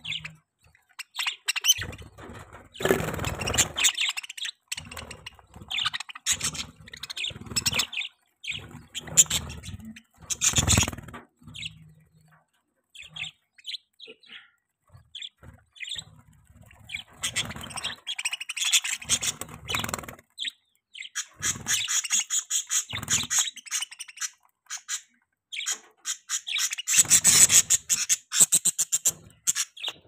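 Flock of budgerigars chirping and chattering in quick, overlapping bursts, busiest about three seconds in and again near the end, with occasional wing flutters as birds flit about.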